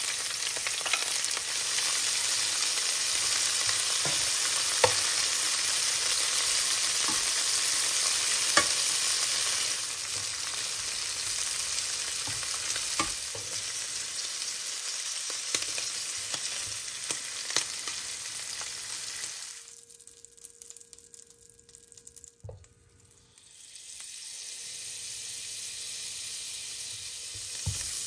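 Shrimp sizzling in hot olive oil in a nonstick frying pan, with scattered sharp clicks of metal tongs against the pan as the shrimp are placed and turned. The sizzle drops out for a few seconds about two-thirds of the way through, then comes back quieter.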